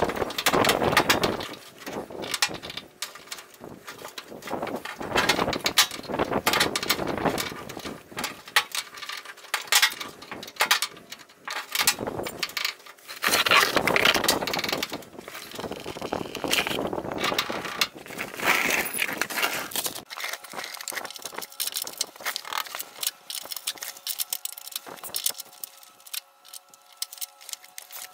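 Wrenches and hand tools clinking and scraping against the brake-line fittings and chassis of a Ford F-250 pickup as the lines are worked loose, mixed with loud bursts of rustling handling noise. About two-thirds of the way in it drops to quieter, scattered metal clicks.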